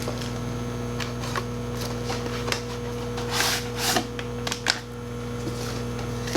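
Microwave oven running with a steady hum while melting butter, with a few light clicks and a short rustle about three and a half seconds in.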